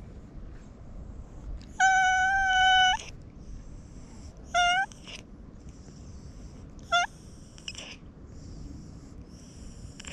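Tabby-and-white domestic cat meowing three times while being stroked: one long, steady meow about two seconds in, then a shorter meow that rises and falls, then a brief rising chirp-like meow.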